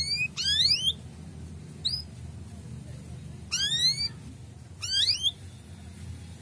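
Male domestic canary giving its rising whistled 'cuit' calls: a series of short upswept chirps, one cut short, with a pause of about two seconds in the middle.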